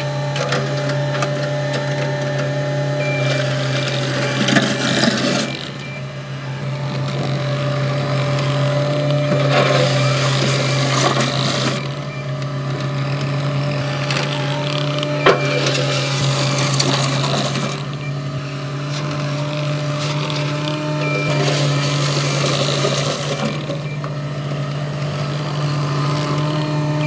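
Caterpillar 259D compact track loader's diesel engine running steadily while its bucket pushes and spreads gravel, the scrape and rattle of stones swelling in several passes. A single sharp knock sounds about halfway through.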